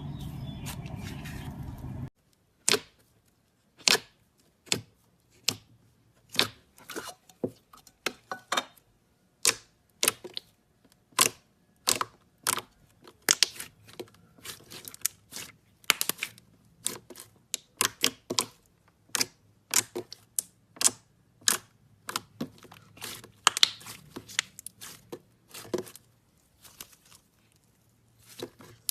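Slime being pressed and worked by hand, making many sharp, separate pops and clicks at an irregular pace, about one to three a second. A steady rustling noise plays first and cuts off abruptly about two seconds in.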